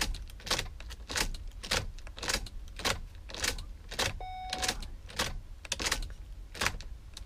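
Ford Transit ignition being switched on and off repeatedly with the key, a sharp click at each turn, roughly one every half second. This is the six-times on-off ignition cycle that puts the vehicle into keypad-programming mode. A brief electronic beep sounds about four seconds in.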